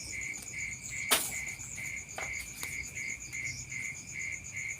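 Forest insects chirping in a steady chorus: a lower call pulsing about three times a second over a faster, higher trill. A sharp click sounds about a second in, with two fainter ticks a little later.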